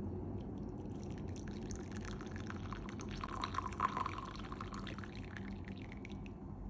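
Coffee poured from a one-cup Bialetti Moka Express stovetop pot into a ceramic mug: a thin splashing trickle that is fullest a little past the middle, thins to a dribble and stops shortly before the end.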